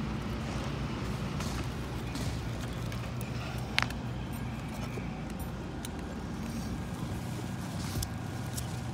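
Roofer cutting and fitting asphalt shingles by hand, with one sharp tap a little under four seconds in and a weaker one near the end, over a steady low motor hum.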